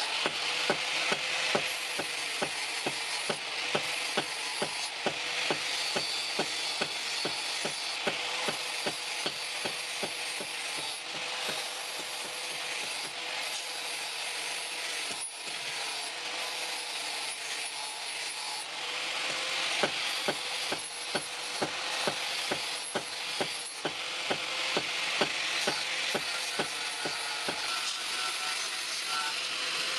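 Metalworking on a scissor blade: regular sharp strokes, about two a second, over a steady hiss.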